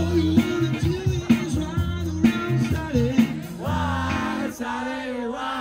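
Live band playing amplified music: a stepping bass line and drums under a melodic lead line.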